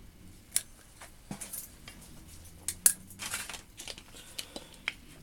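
Small metal tools and their packaging being handled: scattered light clicks and short crinkling rustles, with sharper clicks about half a second in and just before three seconds.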